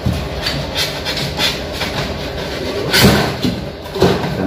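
Plastic and styrofoam freezer air-duct cover being pushed and slid into place by hand, with rubbing and scraping and two louder knocks about three and four seconds in.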